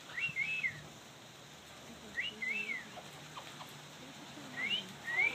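Talking parrot giving short whistled calls, each rising and falling in pitch, in three brief bouts a couple of seconds apart.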